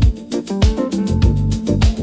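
Ethnic-flavoured electronic music: a deep kick drum thumps a little under twice a second under a plucked-string melody, with light high percussion ticking between the beats.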